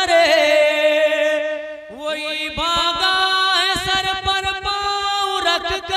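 A man singing a manqabat, an Urdu devotional poem, through a microphone: long drawn-out notes that waver, with a fresh note gliding upward about two seconds in.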